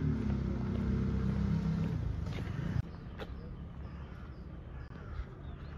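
A motor vehicle engine running with a steady low hum, which cuts off abruptly almost three seconds in. Quieter open-air background follows, with a single sharp click.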